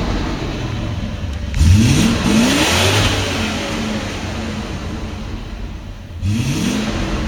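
Audi S6 C4 with its stock exhaust, engine revving under acceleration. The revs climb sharply about a second and a half in, fall back over the next few seconds, and climb again near the end.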